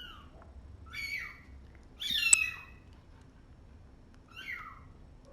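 Tiny kittens, about three weeks old, mewing: a few short high-pitched cries spaced a second or two apart, the loudest a little over two seconds in.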